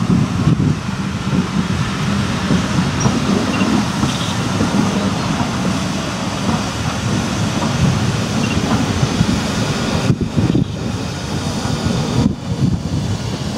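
A steam-hauled passenger train passes: an LMS Fowler 3F 'Jinty' 0-6-0 tank engine, No. 47406, working with its coaches. The wheels rumble steadily on the rails.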